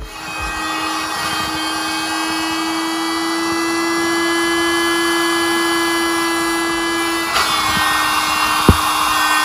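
Electric 12-volt air pump running steadily with a motor hum, blowing air into an inflatable floor cube of an air-mattress kit. About seven seconds in the hum drops slightly in pitch and the air hiss grows. A sharp click comes near the end.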